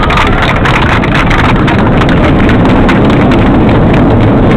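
Loud, steady cabin roar of an Airbus A340-300 on its landing roll: the four CFM56 turbofans and the wheels on the runway. A rapid clatter runs through the first couple of seconds.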